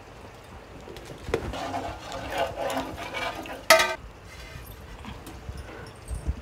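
Steel spoon stirring rock salt into watery masala in an aluminium pot, scraping and clinking against the metal. There is one sharp ringing clink a little past halfway and a couple of knocks near the end.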